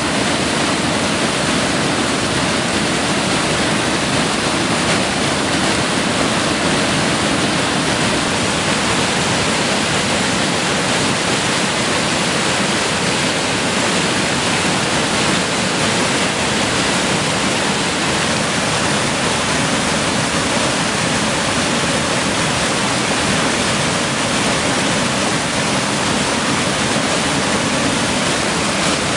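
A stream in flood pouring over a rocky waterfall: a loud, steady rush of churning water.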